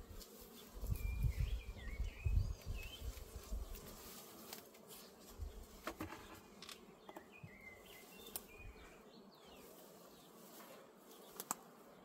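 Honeybees buzzing around an open hive, with a few sharp clicks as the wooden hive cover is worked loose with a hive tool. Low gusts of wind hit the microphone in the first few seconds.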